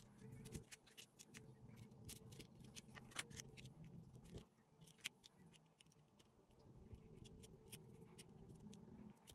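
Faint, irregular scratchy clicks of fingernails picking and scratching at a sand-art board's paper surface, peeling back the cut backing to bare the sticky area beneath, over a faint low hum.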